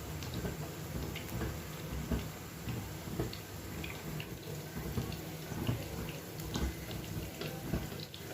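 Food sizzling in a frying pan on low heat: a steady hiss with scattered small pops and crackles.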